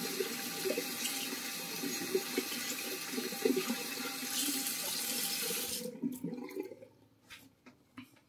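Water running from a tap into a sink, a steady hiss that is shut off about six seconds in, followed by a few faint clicks.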